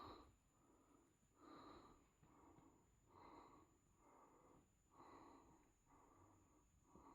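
Faint, rhythmic breathing, a soft breath roughly every second.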